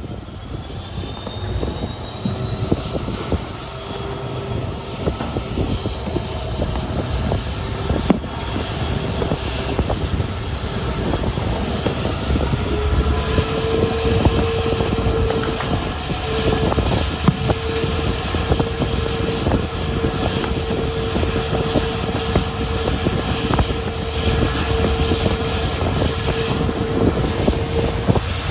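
WDP4 (EMD) diesel locomotive's two-stroke 16-cylinder 710 engine working hard as it hauls the train, with a high turbocharger whine that rises in pitch in the first few seconds and again about halfway through as the engine notches up. Steady rumble and clicking of the wheels over the rails runs underneath.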